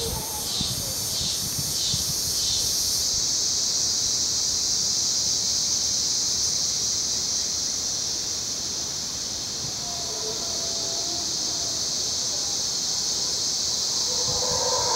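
Steady high-pitched insect chorus, pulsing rhythmically for the first few seconds. Distant mantled howler monkeys roar faintly about two-thirds of the way in, and their roaring swells near the end.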